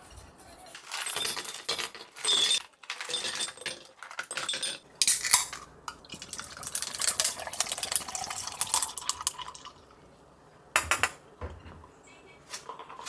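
Kitchen scissors snipping through a crumbly pastry, then canned coffee poured over ice into a glass pitcher: a long splashing pour with ice clinking. A single knock comes near the end.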